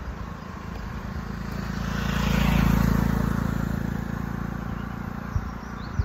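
A motor vehicle passes close by, its engine and tyre noise swelling to a peak about halfway through and then fading away, over a low steady engine hum. Two brief knocks come near the end.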